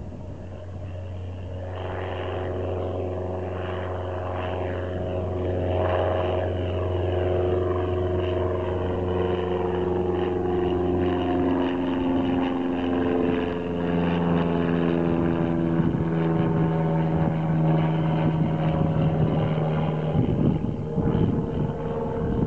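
Cessna 172's single piston engine and propeller at climb power just after takeoff, growing louder as the plane comes overhead. The engine's pitch drops as it passes and climbs away.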